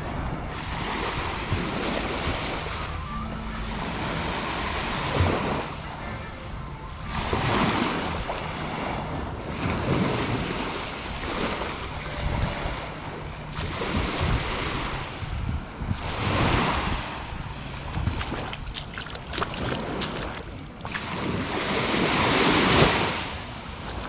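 Small surf breaking and washing up the sand, swelling and fading every few seconds, loudest near the end, with wind buffeting the microphone.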